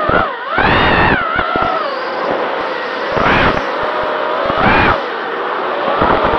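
Motors and propellers of a 250-size quadcopter whining, the pitch rising and falling with the throttle, with sharp climbs about three and about four and a half seconds in and another climb near the end. Gusts of wind rumble across the onboard microphone.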